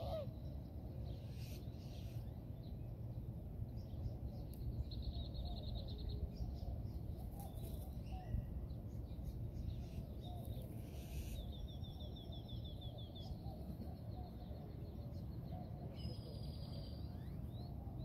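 Birds calling: two rapid chirping trills, one about five seconds in and one past the middle, and quick rising whistles near the end, over a steady low background rumble.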